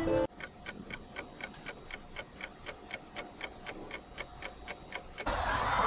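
A clock ticking evenly at about four ticks a second, the kind of ticking added in editing to mark time running down. A louder rush of noise cuts in near the end.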